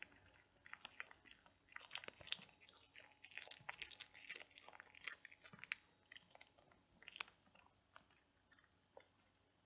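Cat chewing its food with quick, crisp crunching bites, densest in the first half and thinning to scattered bites near the end.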